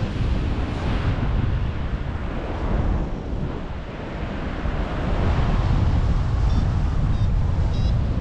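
Strong wind buffeting the camera microphone: a steady low rumble that swells and eases with the gusts. Near the end, a few faint, short, high electronic beeps come through the wind.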